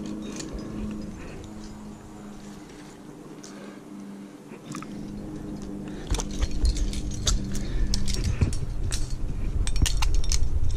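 Climbing gear on a harness, carabiners and quickdraws, clinking as the climber moves up the rock, over a faint steady hum. About six seconds in, low rubbing and scuffing get louder and the clinks come more often.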